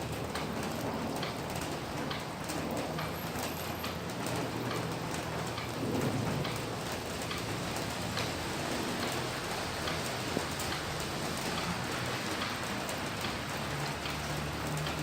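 Steady rain falling, with many individual drops ticking on a hard surface.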